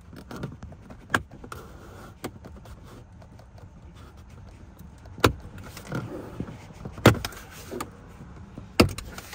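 Plastic dashboard trim clips popping loose as the top dash panel is pulled off by hand: four sharp clicks spread over several seconds, about a second in, two in the middle and one near the end, with quieter handling noise of the trim in between.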